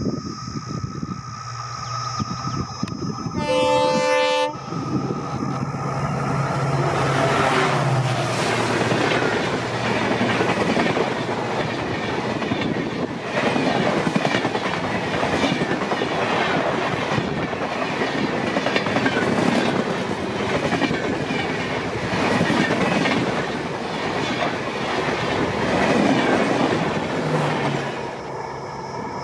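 EMD WDP4D diesel-electric locomotive sounds its multi-tone horn once, for about a second, then passes at speed, its engine note falling as it goes by. The coaches follow, clattering over the rail joints in a steady clickety-clack that fades as the last coach recedes near the end.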